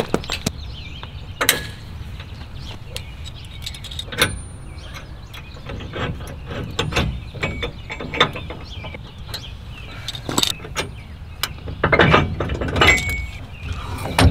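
Metal clicks and clanks of a Roadmaster Nighthawk tow bar being unhooked from a Jeep Wrangler's base plate: pins and spring clips pulled and the steel tow bar arms knocking. The clanks come irregularly, with a louder cluster near the end.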